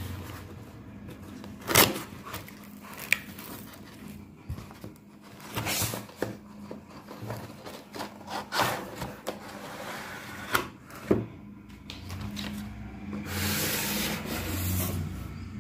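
Cardboard shipping box handled by rubber-gloved hands: rubbing and scraping of the cardboard, with several sharp knocks and taps, the loudest about two seconds in and two close together about eleven seconds in, and a longer scraping rustle near the end.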